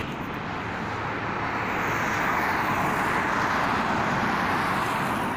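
A road vehicle driving past: engine and tyre noise swelling and then fading away near the end.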